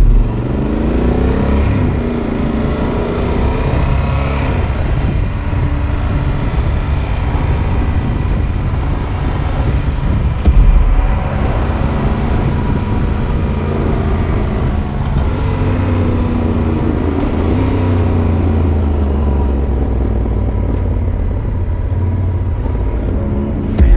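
Yamaha Super Ténéré parallel-twin motorcycle engine running under way, recorded by an onboard action camera, with a heavy low rumble. Its pitch rises as it accelerates near the start and again about two-thirds of the way through.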